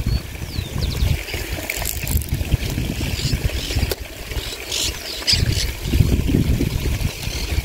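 Gusty wind buffeting the microphone: a low rumble that swells and drops unevenly, with a few faint, thin high chirps over it.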